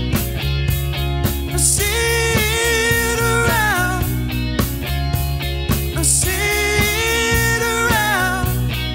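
Live funk-soul band playing: a steady bass line under regular drums, and a sliding lead melody played in two repeated phrases, each with a cymbal splash.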